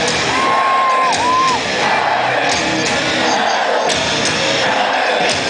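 Live rock band playing loud in a large hall, heard from the audience, with the crowd shouting along. A high held note sounds for about a second near the start.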